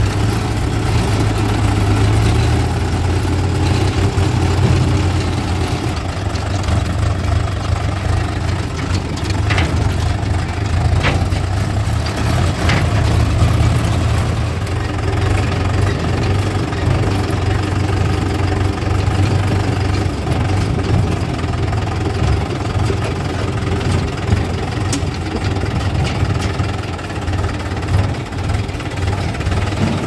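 Swaraj 843 XM tractor's diesel engine running steadily while driving, heard from the driver's seat as a strong, even low hum. A few sharp knocks come about a third of the way in.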